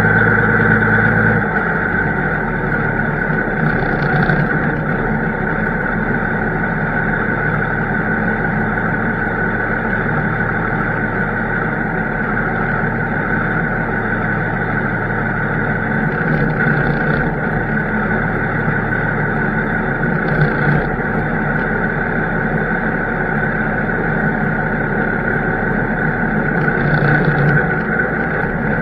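Harvest machinery running steadily: a constant engine drone with a steady whine over it.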